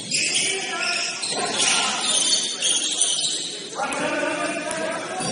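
Indoor basketball game sounds: bursts of high-pitched squeaking from sneakers on the court, mixed with players' voices calling out, louder in the second half.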